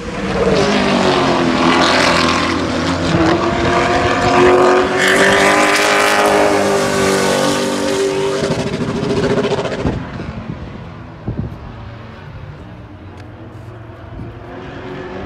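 Pro late model stock car's V8 engine running at speed on the track, loud with its pitch rising and falling as the car goes past. About ten seconds in it drops away to a fainter, distant drone, with a couple of sharp knocks.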